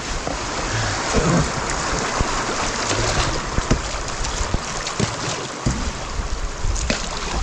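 Rushing water of a river rapid around a moving canoe, with rain falling and scattered short knocks and splashes.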